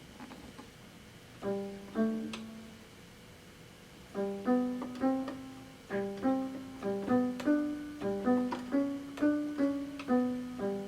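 Casio SA-75 electronic keyboard playing a tune in a piano-like voice, two notes at a time. A couple of notes sound, then after a short pause a quick run follows at two to three notes a second.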